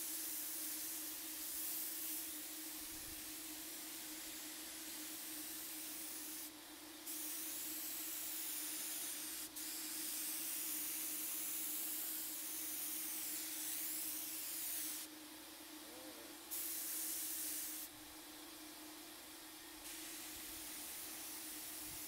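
Paint spray gun with an air hose and paint cup spraying a dresser top, its long hissing passes broken by short trigger releases at about six and a half, fifteen and eighteen seconds in. A steady motor hum runs underneath.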